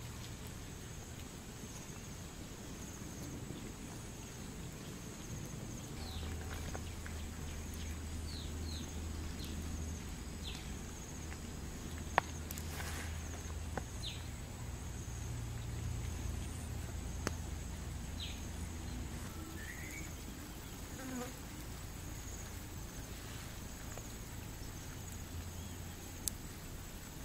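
Steady high-pitched insect drone outdoors, with a low rumble underneath from a few seconds in, a few short chirps and several sharp clicks.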